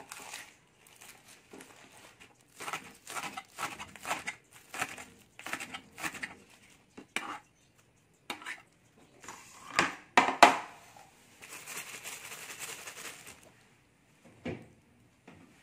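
Kitchen knife chopping spring onions on a cutting board, a run of quick, uneven cuts over the first several seconds. Then come a couple of louder sharp knocks and a few seconds of scraping as the board and bowl are handled.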